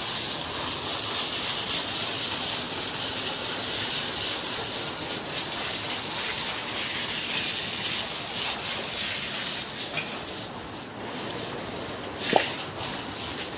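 Water hose spraying a jet of water onto a cow and the wet concrete floor, a steady hiss that grows fainter after about ten seconds. A brief knock sounds near the end.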